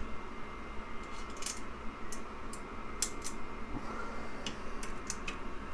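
Light, irregular clicks and taps from hand-fitting a 3D-printed stepper motor tower, with its screws and spring ball T-nuts, onto an aluminium extrusion frame.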